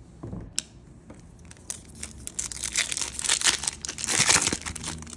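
Trading card pack wrapper being torn open and crinkled by hand: a dense run of crackling rips from about two seconds in, loudest near the end, after a single sharp click about half a second in.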